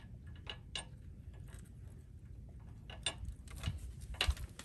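Scattered metallic clicks and taps from hands working on a manual pallet jack's hydraulic pump unit while its release adjustment is tightened, ending in a cluster of clicks and a louder knock near the end.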